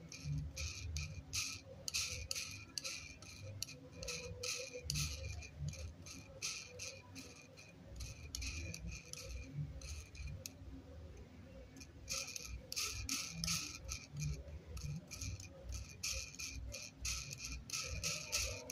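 Quick, irregular plastic clicks and ticks, several a second, from the Signet 515 paddle-wheel flow sensor being handled in the hands, with a short pause about ten seconds in.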